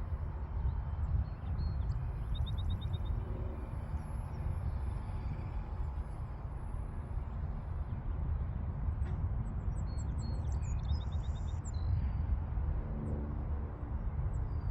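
Wind rumbling on the microphone outdoors, with faint, quick bird chirps twice.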